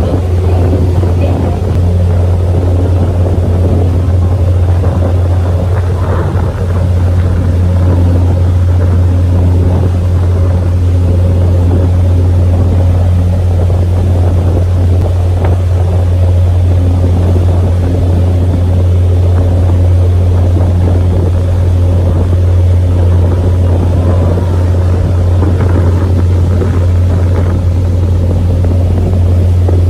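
Sightseeing tour boat's engine running steadily under way, a strong constant low hum mixed with the rush of water along the hull.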